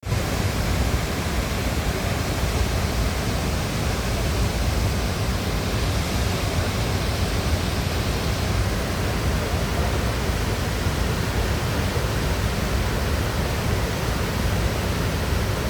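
Waterfall pouring, a steady loud rush of water with a deep rumble underneath.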